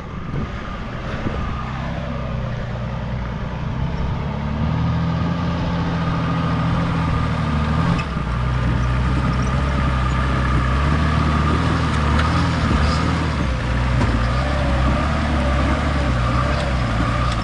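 Engine of a four-wheel-drive ute working under load as it crawls up a rocky climb, its note stepping up from about four seconds in and then holding steady.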